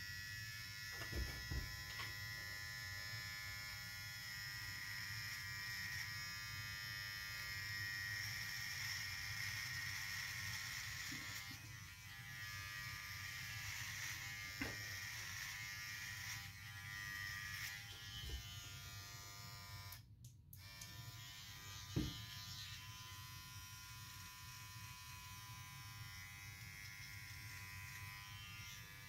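Cordless electric hair trimmer buzzing steadily as it trims beard and head hair, with a few light ticks of the blade against the skin. The sound cuts out briefly a little past two-thirds of the way through.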